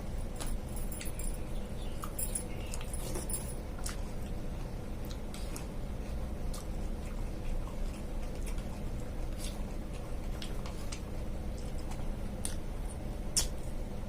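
A person eating mixed fruit with sabudana: scattered small clicks and chewing sounds, the sharpest click near the end, over a steady low hum.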